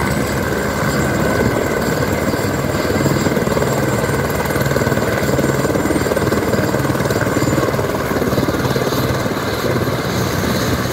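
Helicopter running steadily: a loud, dense rush of rotor and engine noise with a steady high turbine whine over it.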